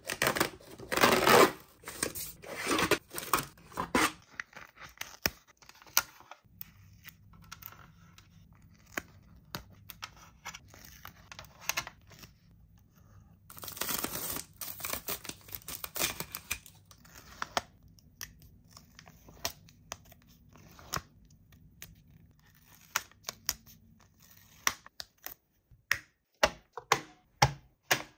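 Toy packaging being torn open and handled, heard as bursts of tearing and crinkling with scattered clicks and taps. There is a burst at the start, another about halfway through, and a quick run of clicks near the end.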